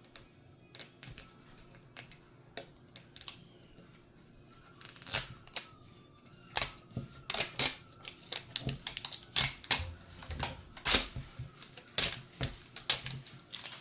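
Toy packaging being handled and opened by hand: irregular sharp clicks and crackles, sparse at first, then coming thicker and louder from about five seconds in.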